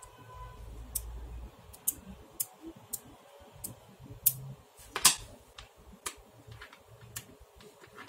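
Small magnetic balls clicking as they are snapped apart and back together by hand: about a dozen sharp, irregular clicks, the loudest about five seconds in.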